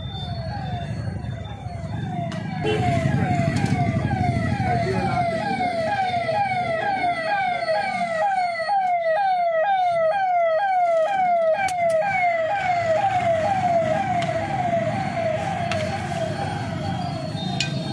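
Electronic siren sounding a quick falling wail about three times a second. It grows louder a couple of seconds in and fades toward the end, over a low traffic rumble.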